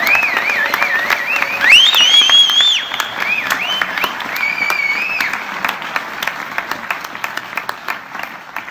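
Audience applauding, with several high whistles rising and falling over the clapping. The applause dies away toward the end.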